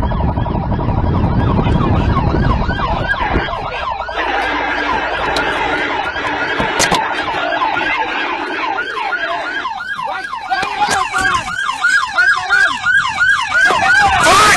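A siren sounding in repeated rising-and-falling sweeps, which turn into a fast, regular yelp for the last few seconds. A low rumble sits under the first few seconds.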